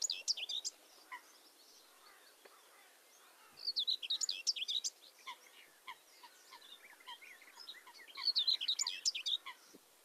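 Common whitethroat singing, three short scratchy song phrases about four seconds apart, with a mallard calling faintly in the background.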